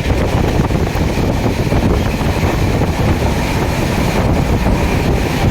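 Steady low rumble of a train passing a level crossing, with wind buffeting the microphone.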